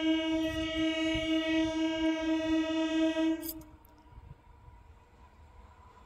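Electric local train's horn sounding one long, steady blast that cuts off sharply about three and a half seconds in.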